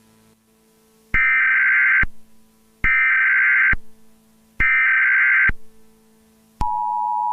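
Emergency Alert System tones: three bursts of screechy SAME header data, each just under a second long and about 1.7 s apart, then the steady two-tone EAS attention signal starting near the end.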